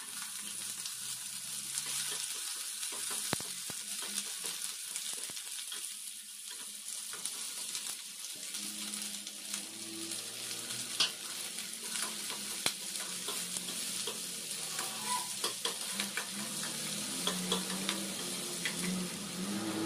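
Chopped onions and garlic sizzling steadily in hot oil in a steel pan. A metal ladle scrapes and clicks against the pan as they are stirred.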